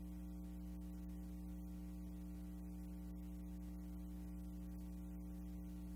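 Steady electrical mains hum: a low, unchanging buzz with many overtones and a little hiss above it, the transfer noise on a film that has no sound of its own.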